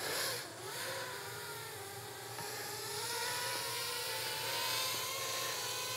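Hand-held FPV quadcopter's brushless motors spinning its props at idle after arming, a steady whir whose pitch rises about half a second in and then holds. With PID at min throttle turned off, the motors idle evenly instead of fighting the hand: the flight controller is 'asleep' at minimum throttle.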